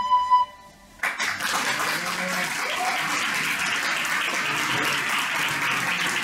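The last held note of a small metal flute ends just under half a second in. About a second in, an audience starts applauding, a steady clapping that holds level.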